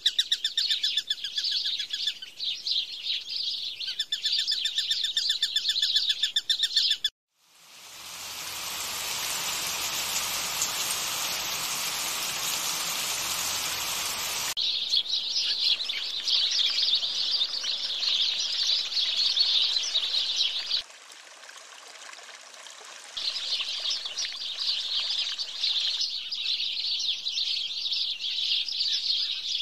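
Background recording of dense, rapid bird chirping, broken by abrupt cuts. About seven seconds in it switches to a steady rushing hiss for several seconds, then the chirping returns, dipping quieter for a couple of seconds before picking up again.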